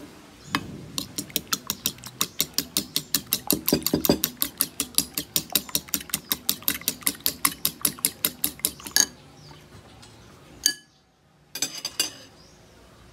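A metal fork beating an egg in a ceramic bowl, the tines clicking rapidly against the bowl about five times a second until the beating stops. Near the end, one ringing clink on the bowl and a brief clatter of a few more clinks.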